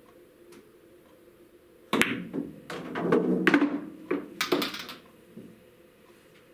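A cue stick strikes the cue ball with a sharp click, followed by pool balls clacking and rolling as the object ball is knocked into a pocket. A few lighter clicks follow as balls are handled and set back on the cloth.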